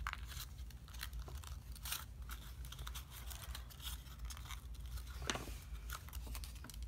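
Folded paper crinkling and crackling as fingers open and squash-fold the thick, many-layered origami model: many short, irregular crackles.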